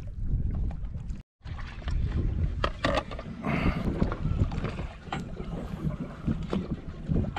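Wind buffeting the microphone on an open boat, with water and scattered small knocks and clicks; the sound cuts out completely for a moment about a second in.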